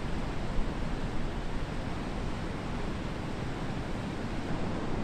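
Heavy ocean surf breaking on a beach: a steady wash of noise from rows of breaking waves.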